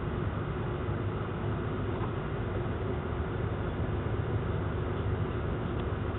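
Steady low background rumble with a faint hum, with no distinct events.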